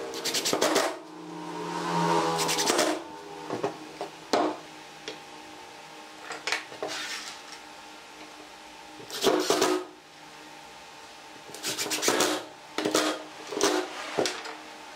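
Cordless impact driver driving wood screws into pine chair rails, in several short hammering bursts of a second or less each.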